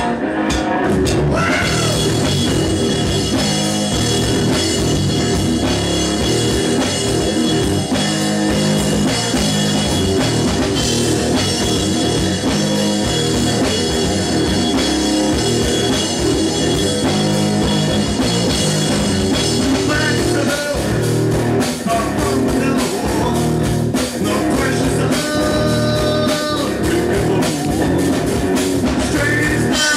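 Punk rock band playing live and loud: electric guitar, bass guitar and a drum kit.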